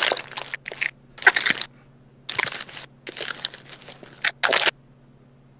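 Crinkly gift wrapping crackling and rustling in irregular handfuls as it is torn open by hand, stopping about a second before the end.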